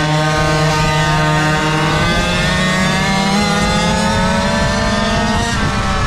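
Small two-stroke engines of GoPed Go-Quad mini karts running at speed. The pitch holds level at first, then climbs steadily as they accelerate, dips briefly near the end and starts climbing again.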